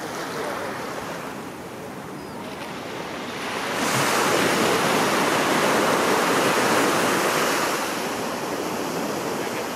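Small ocean waves breaking and washing up a sandy beach. The surf grows louder about four seconds in as a wave breaks and runs in, then eases off near the end.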